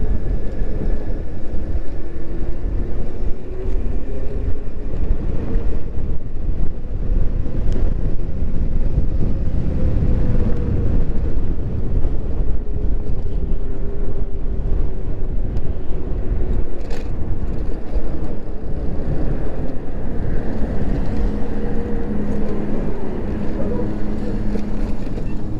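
Riding noise from an electric moped: wind buffeting the microphone and road rumble, with a faint whine that slowly rises and falls in pitch. A steadier low hum joins in near the end.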